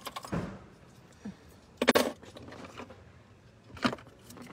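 Handling noise from a phone rubbing and knocking against a car seat: short rustling clatters, the loudest about two seconds in and a smaller one near the end.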